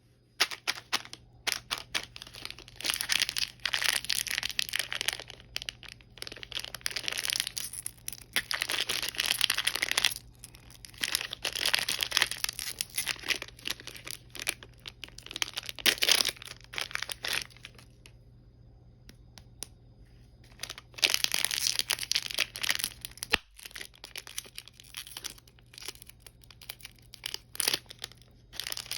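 Candy wrappers being crinkled and torn open by hand, in irregular stretches of rustling with sharp crackles, pausing briefly past the middle.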